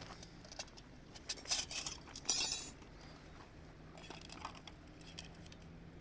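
Light clinks and clatter of small hard objects being handled, with a brief louder rattle about two seconds in.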